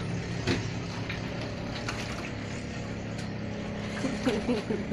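A small engine running with a steady hum over a continuous hiss of heavy rain. A single knock about half a second in, and brief wavering voice-like sounds near the end.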